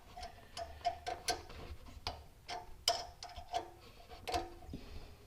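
Light, irregular metallic clicks, roughly two a second, some with a brief ring, from a wrench working a threaded piece into the EGR port of a 4.6-liter V8's exhaust manifold.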